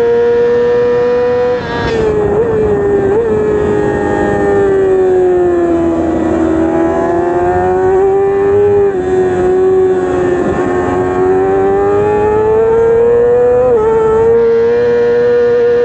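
Stock Yamaha R6's 600 cc inline-four racing engine heard onboard at very high revs: the revs drop about two seconds in with two quick blips on the downshifts, sag through a long corner, then climb steadily back to the top of the range, with a brief dip and recovery near the end.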